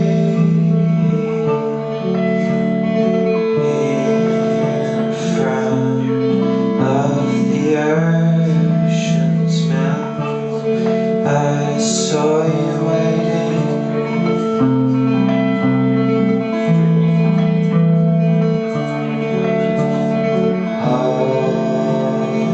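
Band music: guitar with sustained chords underneath and singing.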